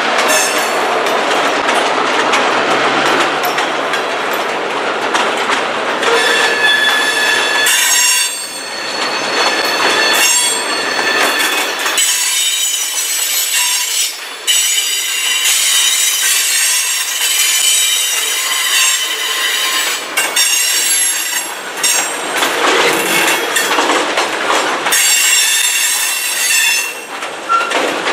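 CN freight train's tank cars rolling past close by with steady rail noise and wheel clatter. Several high-pitched wheel squeals come and go from about six seconds in.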